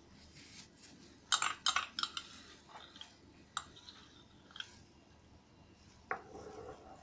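Metal knife clinking against the metal pizza pans and dish while sauce is spread on the dough: a quick run of four or five sharp clinks about a second in, then a couple of single clinks.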